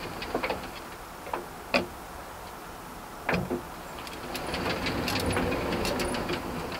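Mechanical clicks and knocks from the hand-cranked turret and sight controls inside an armoured personnel carrier, over a steady low hum. Several sharp clicks come in the first two seconds, a knock about three seconds in, then a louder run of rattling ticks from about four and a half seconds.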